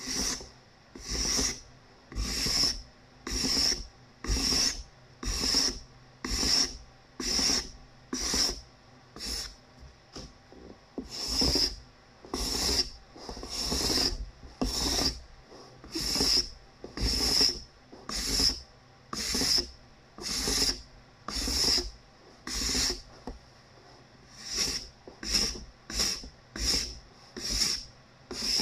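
Hand-held steel card scraper drawn over a cedar board in steady, even strokes, about one a second, each a short rasping scrape as it shaves fine curls off the wood's surface.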